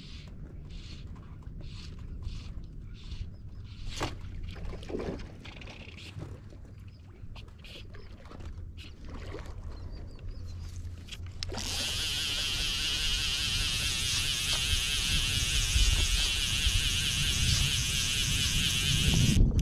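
Micro skiff on the water: a steady low rumble with faint repeated swishes, then about twelve seconds in a loud steady rush of water and wind as the boat gets under way.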